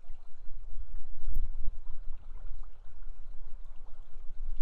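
River water rushing steadily with a deep rumble, and a brief knock about a second and a half in.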